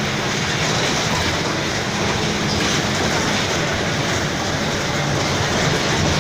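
Mercedes-Benz OF-1722M city bus under way: steady engine and running noise with a droning tone that drops in pitch about five seconds in, and a growling differential.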